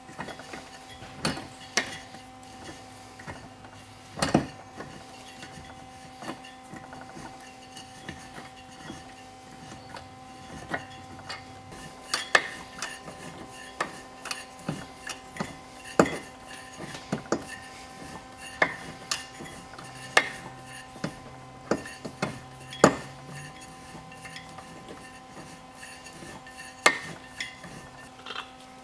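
Irregular metallic clicks and clinks from the desmodromic valve gear of a 1974 Ducati 750SS 'green frame' bevel-drive cylinder head, turned over by hand on a bench as the cams and rockers open and pull shut the valves. A few louder clacks stand out, over a faint steady hum.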